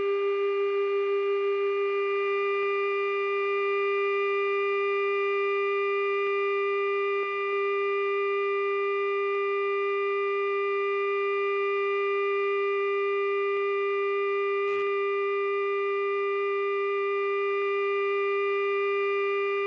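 Steady, unchanging hum pitched around 400 Hz with a ladder of higher overtones, typical of a KC-135's 400 Hz AC electrical system on the flight deck. A single brief click about 15 seconds in.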